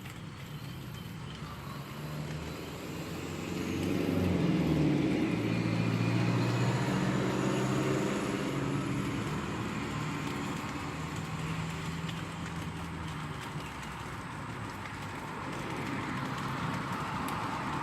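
A motor vehicle's engine running nearby, a low hum that swells about four seconds in and fades away after about thirteen seconds.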